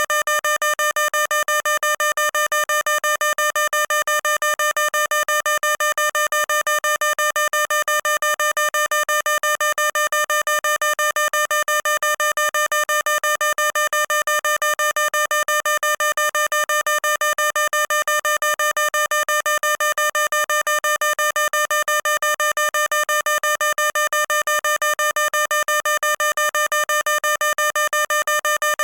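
Fire alarm sounder beeping: one electronic tone at an unchanging pitch, pulsing rapidly and evenly without a break.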